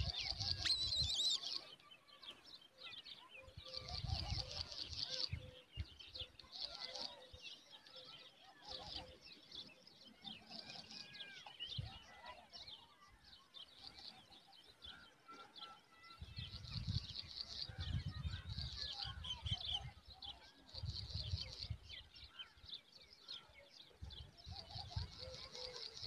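Eagle chick calling: repeated runs of high-pitched chittering peeps, each about a second long, coming every second or two. Low rumbles come and go underneath, near the start, about four seconds in and again in the last third.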